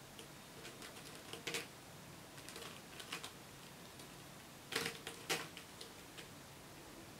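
A kitten's claws catching and raking on the sisal rope of a cat scratching post, making an irregular run of short, faint scratchy clicks. There are louder scrapes about a second and a half in and twice near five seconds.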